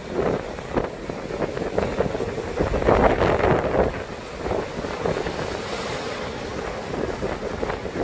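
Sea waves breaking and washing over rocks, with strong wind buffeting the microphone. The surge swells loudest about three seconds in.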